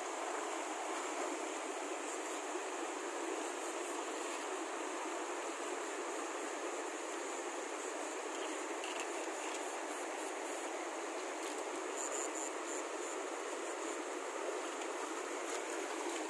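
Shallow mountain stream running over rocks: a steady rushing of water.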